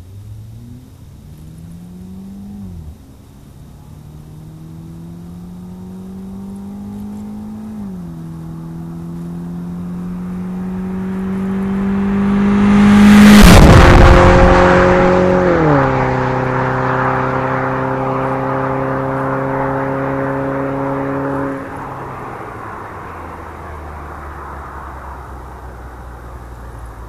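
Mazda CX-5's 2.0-litre four-cylinder engine with a Corksport short ram intake and exhaust, accelerating through the gears as the car drives past. The engine note climbs with upshifts about 3 and 8 seconds in, is loudest as it passes about halfway, drops in pitch just after, then falls off suddenly some five seconds before the end and fades to a low hum.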